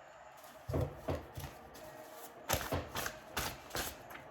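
A deck of tarot cards being handled on a table: a few soft thumps and taps about a second in, then a quicker run of taps in the second half.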